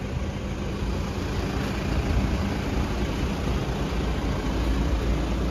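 Passenger van's engine idling: a steady low rumble.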